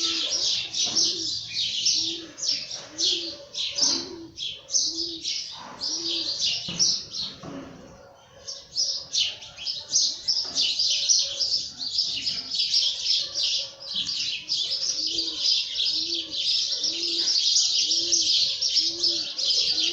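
Many small birds chirping rapidly and almost without pause, with a short lull a few seconds before the middle. Beneath them a dove repeats a single low cooing note at an even, steady pace.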